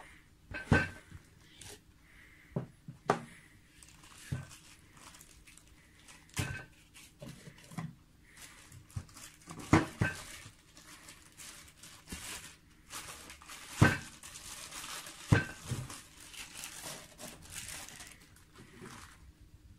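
Clear plastic film crinkling and rustling as it is unwrapped from an eyepiece. Scattered sharp clicks and knocks come from a hard plastic screw-top case being handled and set down.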